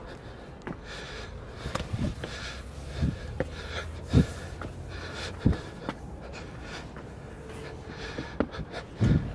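Footsteps and camera handling while walking up stone steps: a run of dull, irregular thumps about a second apart over a low steady background noise.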